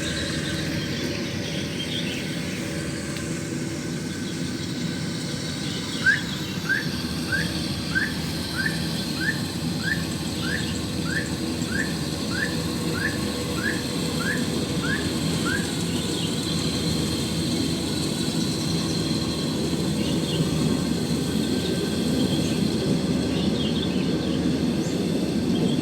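Rice combine harvester's engine and threshing machinery running with a steady drone. For about ten seconds in the middle, a run of short rising chirps repeats about every two-thirds of a second, with fainter chirps scattered around it.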